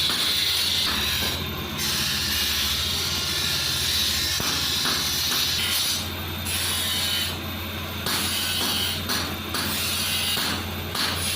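Electric grinding machine running with a steady motor hum and a loud rasping hiss of metal being ground, which cuts out briefly several times as the work is lifted away.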